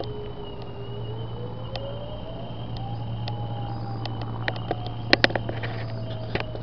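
Distant outdoor lahar warning sirens sounding a test, their tone winding slowly up in pitch and then sliding back down. A thin steady high tone and a low hum run underneath, and a cluster of sharp clicks comes in the second half, the loudest pair about five seconds in.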